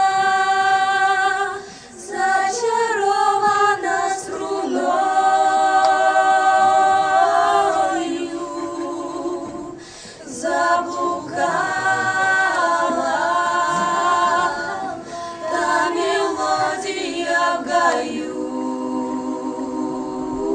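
A group of voices singing a cappella in harmony, holding long notes, with brief breaks between phrases.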